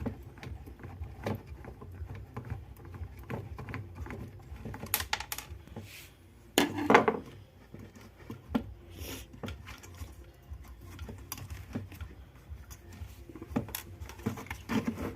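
Scattered light clicks and clinks of small metal tools and parts handled on a workbench while an IC is being removed from an amplifier board, with a louder clatter about seven seconds in.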